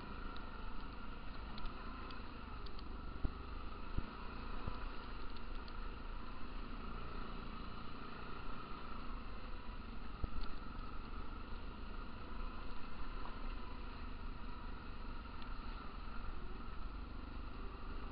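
Stels ATV 300 quad's engine running steadily while riding along a rough dirt road, with a couple of sharp knocks from bumps along the way.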